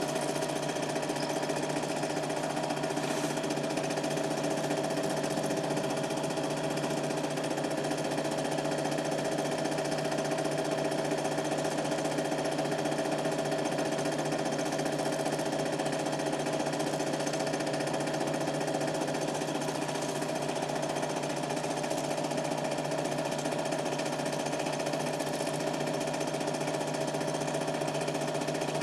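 Super 8 film projector running: a steady mechanical whirr and fast, even clatter with a constant hum.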